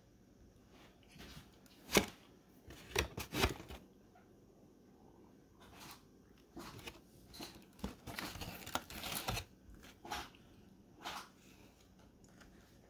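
Kraft-paper takeout boxes being handled, with scattered sharp crackles and a longer stretch of rustling a little past the middle.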